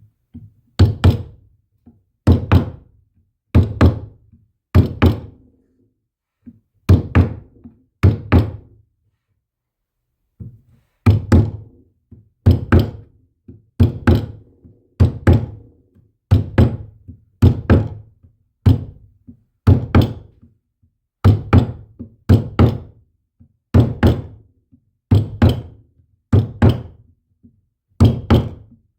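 A steady series of knocking blows, most in quick pairs about every second and a half, with a pause of a few seconds about a third of the way through.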